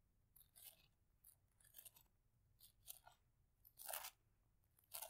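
Faint, scattered rustling of Bible pages being turned, in short brushes with the loudest about four seconds in.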